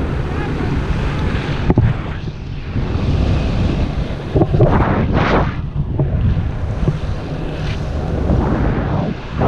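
Heavy wind rumbling over the camera microphone of a paraglider in flight. It swells and eases several times as the airflow gusts past.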